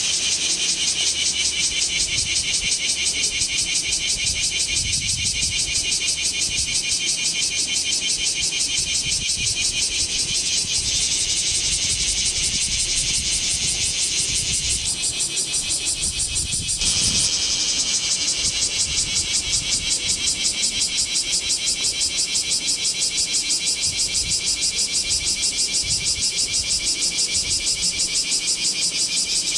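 Bear cicadas (Cryptotympana facialis) calling: a loud, high-pitched shrill chorus pulsing evenly several times a second, with a brief shift in the pattern about halfway through.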